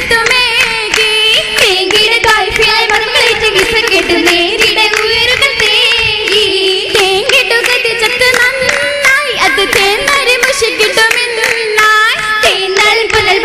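Oppana: a group of voices singing a Mappila song in unison, with steady rhythmic hand clapping by the dancers.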